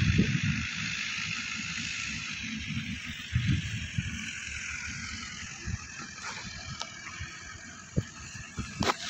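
Massey Ferguson diesel tractors running under load as they drag levellers across a field, heard from a distance and growing fainter, with wind buffeting the microphone. A few sharp knocks come near the end.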